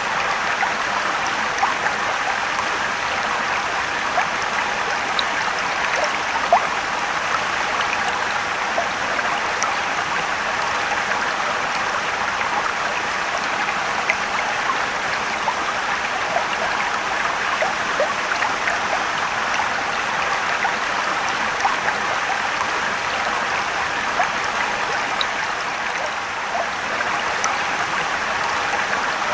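Mountain stream rushing and trickling over rocks, a steady wash of water with small splashes scattered through it.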